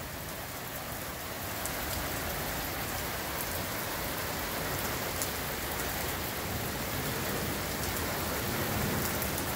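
Heavy rain falling steadily, a downpour hitting parked cars and pavement.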